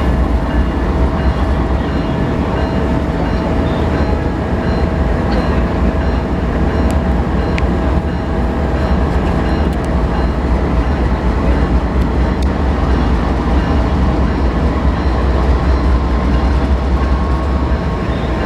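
Passenger train running steadily on the rails: a continuous loud, deep rumble with a thin steady hum above it.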